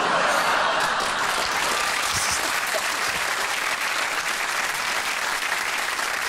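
Studio audience applauding, loudest in the first second and then holding steady.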